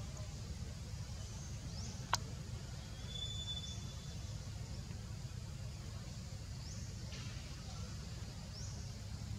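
Outdoor background with a steady low rumble, a single sharp click about two seconds in, a short high whistle-like tone a second later, and a few faint high chirps.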